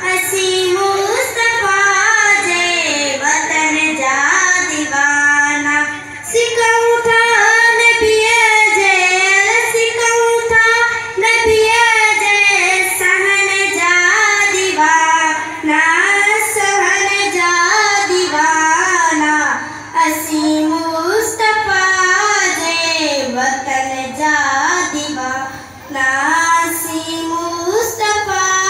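A young girl reciting a naat (Islamic devotional poem) unaccompanied into a microphone, singing long, wavering held notes, with brief pauses between phrases.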